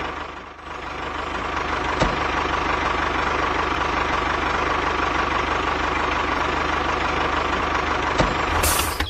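Diesel tractor engine idling steadily with a low, even knock, dipping briefly just after the start.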